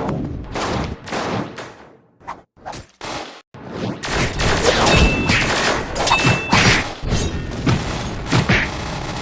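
Cartoon action sound effects: a quick series of hits and bangs like a fusillade, thinning out for a moment around two seconds in, then a denser run of impacts.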